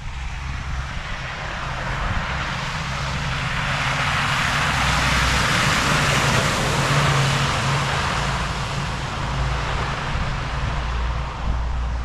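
A passing vehicle: its noise swells to a peak midway through and then fades, over a steady low traffic hum.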